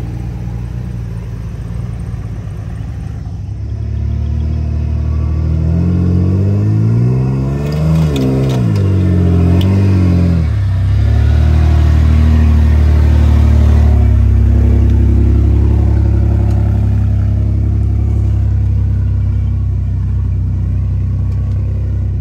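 Off-road truck engine working hard: it revs up and down several times, then holds a steady, louder pull that slowly eases off.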